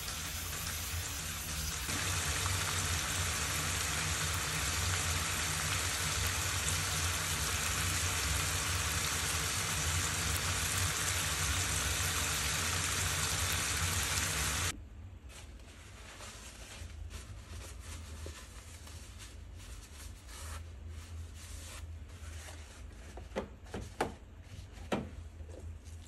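A steady hiss over a low hum that cuts off suddenly about fifteen seconds in, followed by a quieter stretch of faint clicks and a few light ticks near the end.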